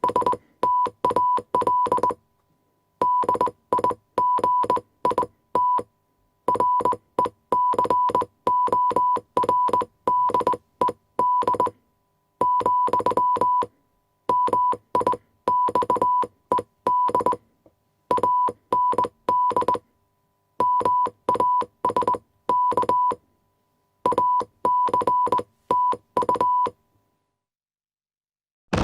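Morse code: a steady beep of one pitch keyed on and off in short dots and longer dashes, sent in groups separated by brief pauses. It stops about a second and a half before the end.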